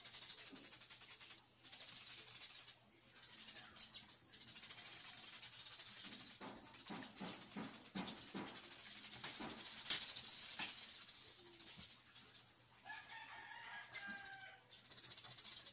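Chickens clucking in the background, with a rooster crowing near the end, over a steady high hiss.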